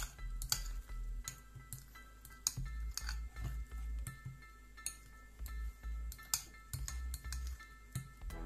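A metal spoon clinking and scraping against a small glass bowl in irregular taps while stirring a thick, creamy mixture, over quiet background music.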